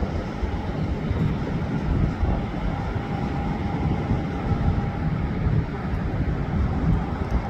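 Distant Southwest Boeing 737 airliner's jet engines rumbling during its landing roll, with a faint steady whine coming in about three seconds in.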